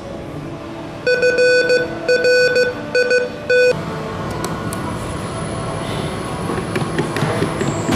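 A Morse code encoder's electronic buzzer keys out a word in beeps of unequal length. After that an exhibit's fan starts up, a rising rush of air with a thin high whine that grows louder near the end.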